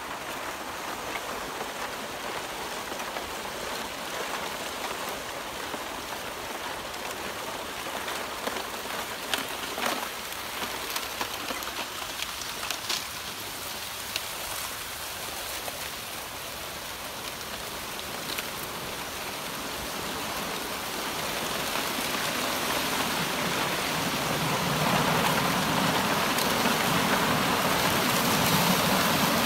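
Steady hiss of rushing water with a few light clicks partway through. It grows louder and fuller over the last third.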